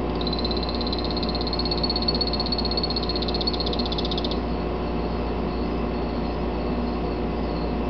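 Male phantasmal poison frog (Epipedobates anthonyi, the Salvias morph of 'tricolor') calling: one high-pitched trill of rapid pulses lasting about four seconds, which stops suddenly. A steady low hum runs underneath.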